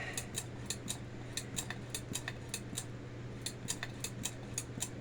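Hand-operated brake-bleeding vacuum pump being squeezed over and over, each stroke a short sharp click, about four or five a second, as it draws a vacuum on a sealed jar. A faint steady hum sits under it.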